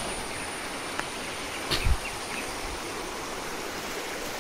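Stream water rushing steadily through and over a low concrete weir. A faint click about a second in and a louder short thump just before two seconds in.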